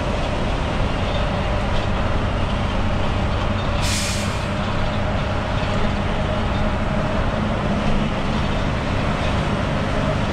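Heavy truck engine running steadily under loud wind and road noise coming in through the open cab window, with a short hiss about four seconds in.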